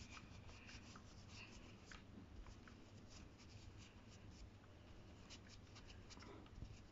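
Faint, scratchy rubbing of a cotton pad soaked in nail polish remover being scrubbed over a fingernail, with many small irregular scrapes.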